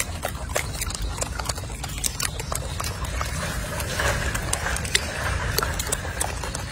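Monkeys feeding on fresh greens and vegetable pieces: irregular crisp clicks and crunches of leaves being handled and chewed, over a steady low rumble.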